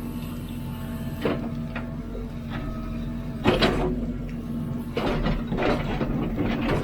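Hidromek 102B backhoe loader's diesel engine running steadily while it digs, with the bucket and arm knocking and scraping several times; the loudest knock comes about halfway through.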